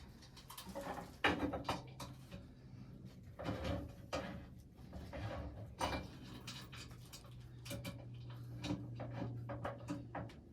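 Irregular knocks, clicks and clatter of stove and flue parts being handled and fitted, over a low steady hum.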